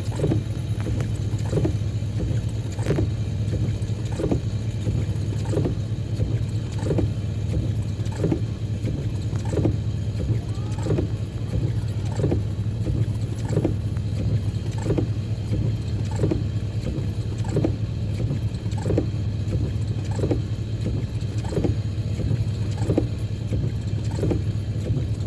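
An engine running steadily at a low, even pitch, with a short chirp-like pulse repeating about every second and a quarter.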